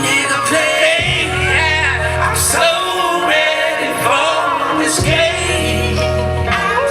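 A male neo-soul/R&B singer performing with instrumental backing: wavering vocal runs over sustained bass notes and repeated cymbal hits.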